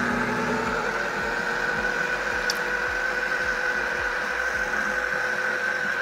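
Electric food processor running steadily on one speed, its blade chopping soaked lentils with parsley into small pieces: a steady motor whine over the churning of the mixture.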